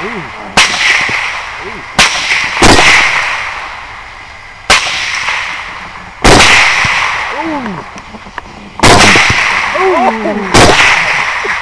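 Seven rifle shots fired at uneven spacing, about one to two and a half seconds apart, each echoing and fading away slowly. Brief squeals are heard between some of the shots.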